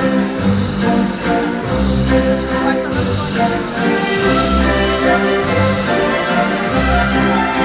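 Orchestral show music with a steady beat, sustained notes over regular cymbal-like strikes.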